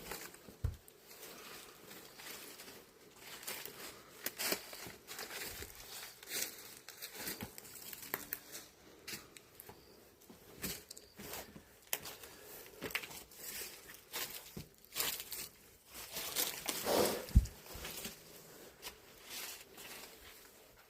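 Footsteps crunching over broken glass and debris on a floor, an irregular run of crackles and crunches, with a louder crunch and thump about seventeen seconds in.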